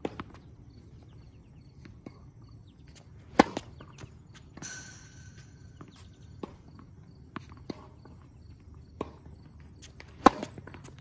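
Tennis serves on an outdoor hard court: two sharp strikes of the racket on the ball, the first about three and a half seconds in and the second near the end. A fainter short rattle comes about a second after the first strike. Light taps of the ball being bounced on the court come before the serves.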